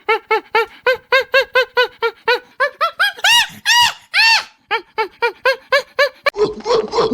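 A young animal yelping in quick, short, high cries, about four a second, with three louder, higher-pitched cries in the middle.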